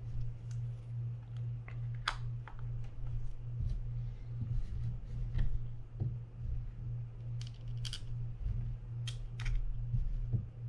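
Scattered light clicks and taps of small parts and tools being handled during a fishing reel rebuild, a few at a time, the sharpest coming about two seconds in and in a cluster in the second half, over a steady low hum.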